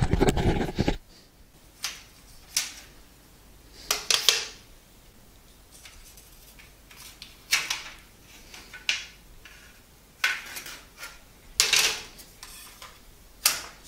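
A US Robotics external modem's plastic case and circuit board being handled: a heavy knock at the start, then a string of separate sharp plastic clicks and clatters as the board is lifted out of the case shell.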